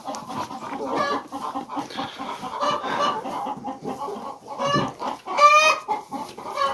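Chickens clucking in a steady run of short calls, with one louder, longer call about five and a half seconds in.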